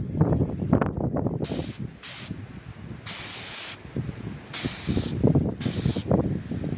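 Compressed-air paint spray gun with a gravity-feed cup, triggered in five short hissing bursts of about half a second each as it sprays paint, over a low, irregular rumble.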